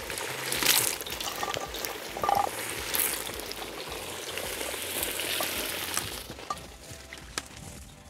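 Potato slices dropped by the handful into very hot oil in a cast-iron kazan, the oil sizzling and crackling, flaring up as each handful goes in and easing off near the end.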